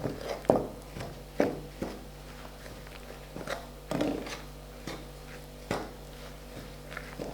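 Irregular light knocks and taps, about half a dozen clear ones, over a faint steady hum.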